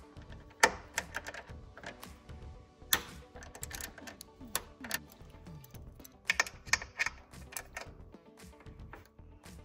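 Small hand ratchet with a Torx bit clicking irregularly in short runs as it turns out a screw, with sharp metal taps of the tool against the bracket. Soft background music runs underneath.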